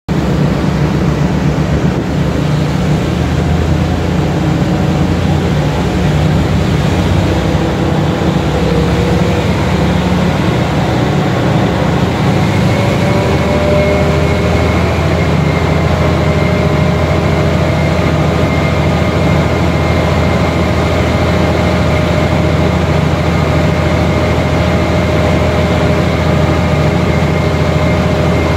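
Diesel-electric locomotive R138 idling loud and steady with a heavy pulsing low rumble while its air compressor runs to refill the air reservoirs. About twelve seconds in, a thin whine comes in and rises slightly in pitch, then holds.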